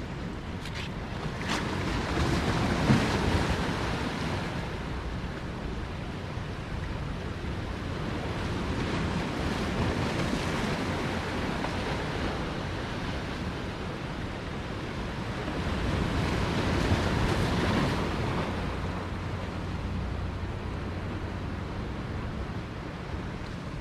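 Ocean surf washing onto the beach, with wind buffeting the microphone; the wash swells louder a few seconds in and again about two-thirds of the way through.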